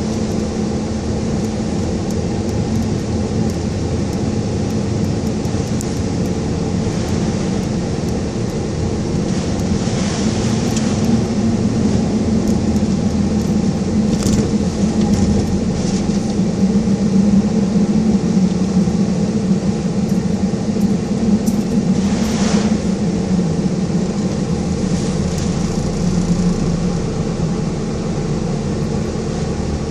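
Car driving in a typhoon: steady engine and road noise mixed with wind and rain, swelling a little in the middle, with scattered short sharp hits.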